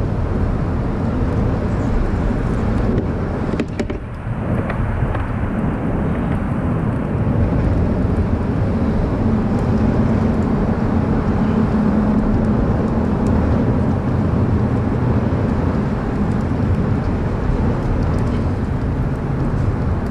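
Steady rumble of road traffic on the highway bridge overhead, swelling with a stronger hum around ten to thirteen seconds in, with a few light knocks about three to four seconds in.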